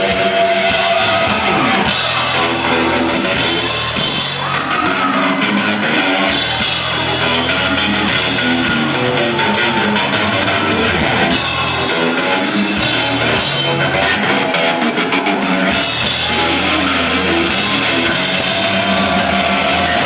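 Live rock band playing loudly, heard from among the audience: drum kit, electric guitar and a singing voice.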